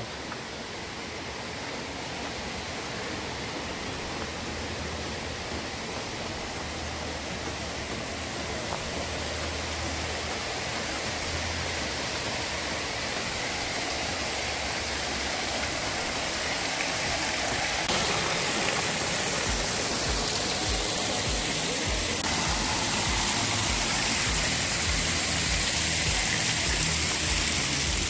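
Steady rush of falling water from the Bhagsunag waterfall, growing gradually louder, with background music underneath.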